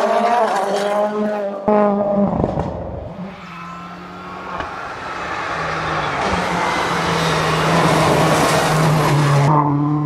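Rally car engine at high revs passing close by, its pitch jumping with a gear change, then dropping away. From about halfway in, a rising rush of noise builds and then cuts off suddenly near the end.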